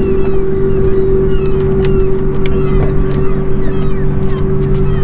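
Electric bow-mount trolling motor on a fishing boat running with a steady, even hum, under a low rumble of wind on the microphone.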